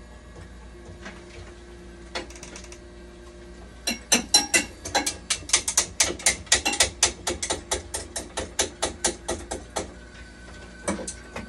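Rapid, irregular mechanical clicking, about five sharp clicks a second, starting about four seconds in and stopping shortly before the end, from hand work inside an opened dialysis machine.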